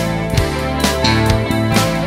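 Music with a steady beat, about two strokes a second, over held bass notes.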